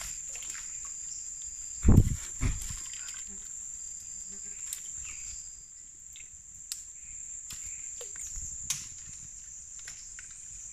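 Insects calling with a steady high-pitched drone, with two loud dull thumps about two seconds in and a few sharp clicks later.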